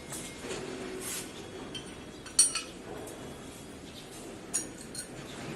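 Small metal pieces clinking against each other or a hard surface: one sharp ringing clink about two and a half seconds in, and a softer one about two seconds later.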